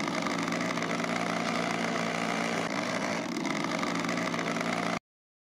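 Two-stroke chainsaw engine running steadily at idle just after starting; it cuts off suddenly near the end.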